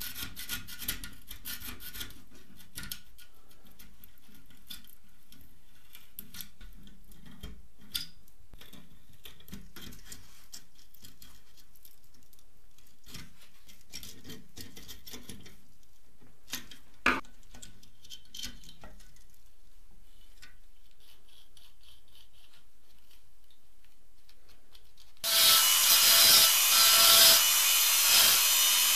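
A screwdriver scraping and prying at the rusted metal chassis of an old toy car, with small scrapes and clicks and one sharp click about 17 seconds in. About 25 seconds in, a handheld rotary tool starts up and runs against the rusted wheel axle, much louder and pulsing as the bit is pressed on.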